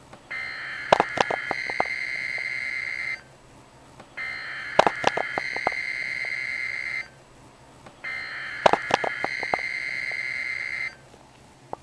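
Emergency Alert System SAME header: three bursts of steady, shrill digital data tones, each about three seconds long with about a second's pause between, announcing the start of the alert. A cluster of sharp clicks comes in the first second of each burst.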